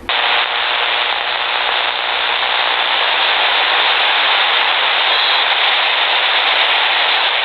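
Shortwave radio receiver hiss and static, switching on suddenly and then holding loud and steady with no station audible.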